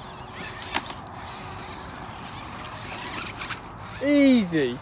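FTX Ravine RC rock crawler's electric motor and drivetrain whirring faintly as it climbs over a log, with one sharp click a little under a second in. A loud voice-like exclamation with a falling pitch near the end.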